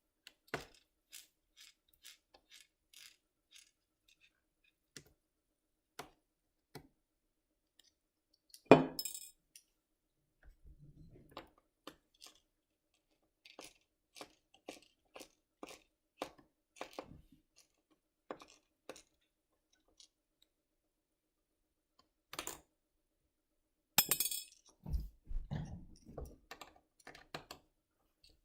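Scattered small clicks and metal clinks from working out the tiny screws that hold a laptop's LCD panel, with one sharp, loud clink about nine seconds in and a short burst of clatter near the end.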